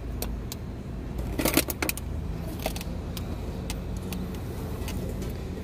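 Coins clinking in a few short clicks as a hand picks them up and counts them from the car's centre-console tray, most of them in a quick cluster about a second and a half in. A steady low hum of the car runs underneath.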